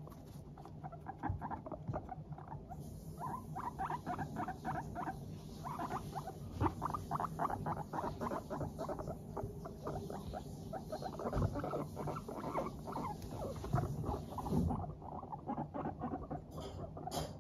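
Teddy and Abyssinian guinea pigs chutting as they walk: rapid, short 'pup-pup-pup' calls, several a second, going on almost without a break. It is the contented, cheerful sound guinea pigs make while trotting about in a good mood.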